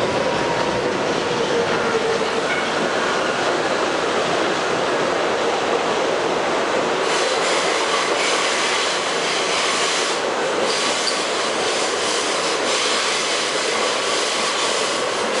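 Westinghouse R68 subway car running, heard from inside the car: a steady rumble and hiss of wheels on rail, with faint wheel squeal tones. The hiss grows brighter about halfway through.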